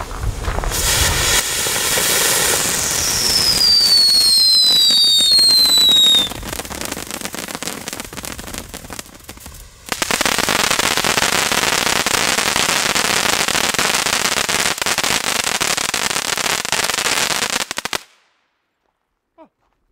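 Small firework fountain burning: a hissing spray with falling whistles a few seconds in, then from about halfway a loud, dense crackling of stars that cuts off abruptly near the end.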